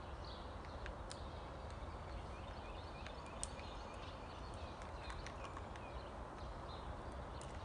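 Quiet outdoor background: a steady low rumble with scattered light clicks and knocks and short high chirps. One sharper click comes about three and a half seconds in. No saw or engine is running.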